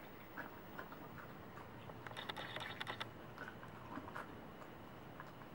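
A Welsh corgi licking and chewing a piece of grilled tofu on a plate: soft scattered smacks and clicks of tongue and teeth, with a quick run of them about two seconds in.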